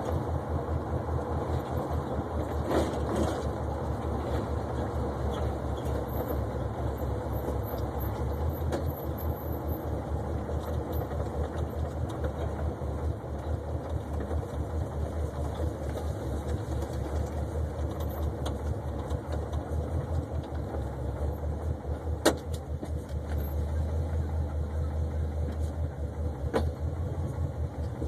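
1972 Oldsmobile 442's V8 engine and exhaust running as the car is driven, a steady low pulsing throb heard from inside the cabin. Two sharp clicks come in the last quarter.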